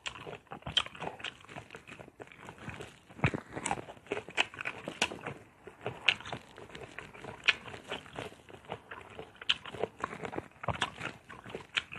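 Close-miked eating sounds: mango slices dipped in bagoong being bitten and chewed, with many irregular small wet clicks and smacks of the mouth.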